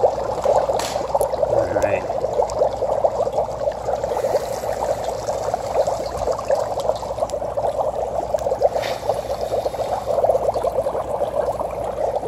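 Dry ice in a glass bowl of water, bubbling and gurgling steadily as it sublimates, with a dense crackle of bursting bubbles.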